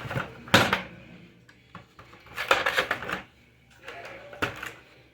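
Handling noise of a PS4's plastic internals and Wi-Fi antenna cable being worked by hand: a sharp clack about half a second in, then two more bursts of clicking and rustling around two and a half and four and a half seconds in.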